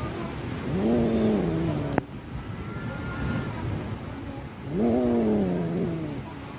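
Domestic cat yowling during mating: two drawn-out yowls, each about a second and a half long, rising and then sliding down in pitch.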